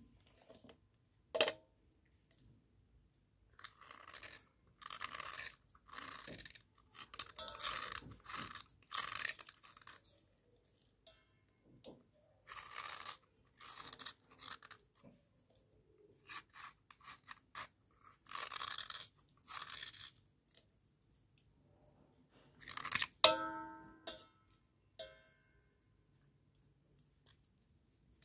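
Square slate pencils being crumbled and scraped by hand over a steel bowl: irregular bursts of gritty crunching and scraping. About 23 s in there is one loud sharp clink against the steel bowl that rings briefly.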